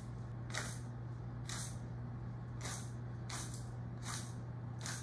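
Hand-twisted spice mill grinding salt and pepper: a series of short rasps, about one or two a second, one per twist, over a steady low hum.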